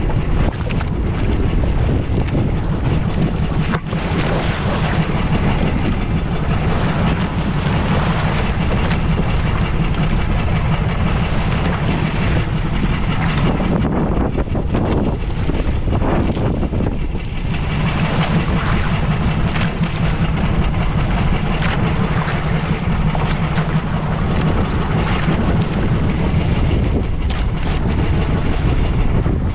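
A fishing boat's engine running steadily at sea, with wind buffeting the microphone and the wash of waves. The engine hum fades back for a few seconds midway, then returns.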